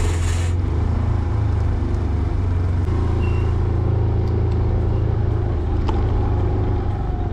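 Motor scooter riding along, its engine running steadily: a loud, even, low-pitched drone.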